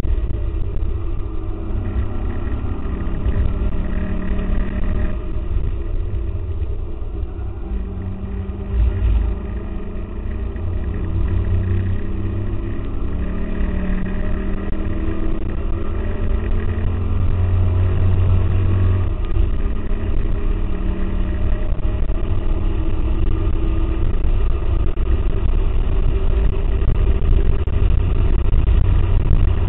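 A 2004 Ford Mustang GT's 4.6-litre V8 under hard track driving, heard from inside the cabin in low-fidelity sound, with heavy low rumble. The engine note rises and falls through the corners and grows louder in the second half as the car accelerates.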